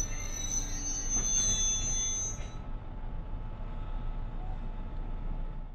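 NJ Transit commuter train rolling past with a high-pitched metallic squeal from its wheels or brakes, which stops a little under halfway through. The steady rumble of the train continues after it.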